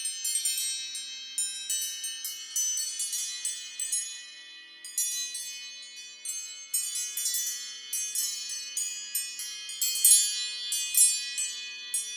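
Apple ringtone of bright, high chime notes struck in quick, uneven clusters that ring and fade like wind chimes, over faint held low notes.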